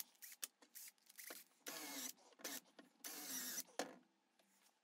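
Cordless drill running faintly in several short bursts, boring into a small wooden block.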